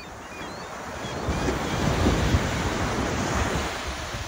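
Ocean surf: a wave breaking and washing up the beach, swelling about a second in and easing near the end, with wind buffeting the microphone.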